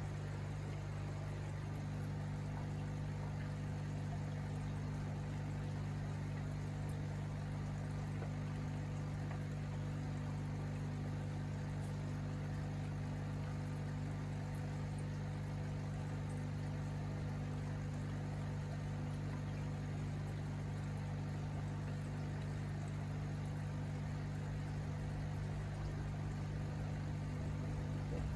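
Aquarium pump running with a steady low electrical hum, under a faint even hiss of moving water.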